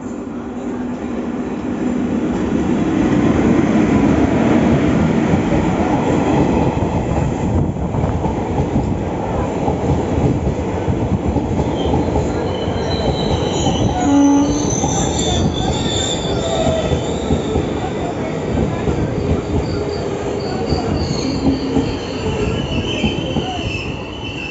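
Electric-locomotive-hauled passenger train running into a station: a steady rumble and clatter of the coaches on the rails, loudest a few seconds in as the locomotive passes. From about halfway on, high squealing from the wheels as the train slows to arrive, with one brief knock in the middle.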